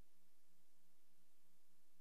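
A silent track: only a faint, steady hiss with a low electrical hum underneath.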